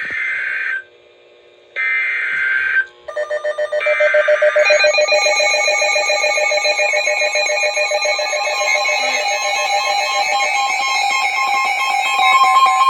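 NOAA Weather Radio emergency alert opening: three short screeching digital data bursts about a second apart (the SAME header), then a rapid electronic pulsing alarm. A steady warning tone of about 1 kHz joins near the end, signalling that a warning message follows.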